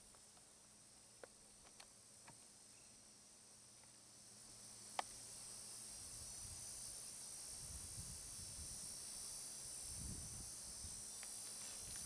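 Faint, steady high-pitched chirring of insects, growing a little louder after about four seconds. A sharp click comes about five seconds in, and a few low rumbles come later.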